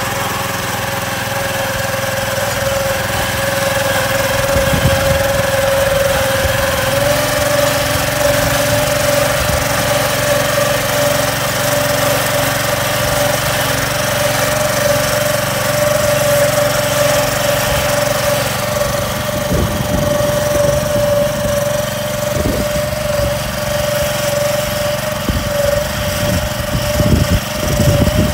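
Walk-behind cultivator's small air-cooled petrol engine running steadily under load as its rotor hills soil onto potato rows: a steady engine drone that steps up slightly in pitch about seven seconds in, with some rough low knocks in the second half.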